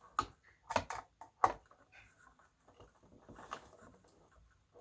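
Sharp clicks and knocks of a tool prying at a speaker glued into a radio, four of them in the first second and a half and another about three and a half seconds in, with quieter scraping in between.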